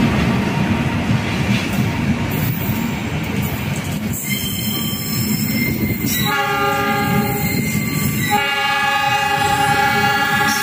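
Passenger coaches rolling past close by with a steady rumble and wheel clatter. From about six seconds in, a multi-note train horn chord sounds, breaks off briefly near eight seconds, and sounds again.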